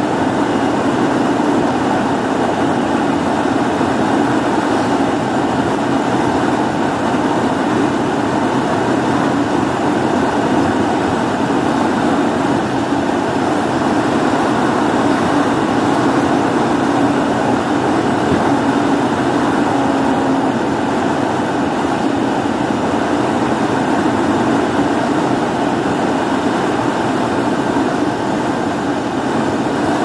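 Steady noise of a Volvo FM truck on the move, heard inside its cab: engine, tyre and wind noise blended into one even roar.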